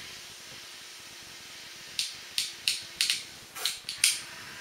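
Ratchet crimping tool squeezing a wire ferrule closed: a quick run of about seven sharp clicks, starting about two seconds in.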